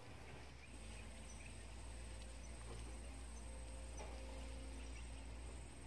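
An insect keeps up a steady, high-pitched trill that starts about a second in, over a low rumble on the microphone.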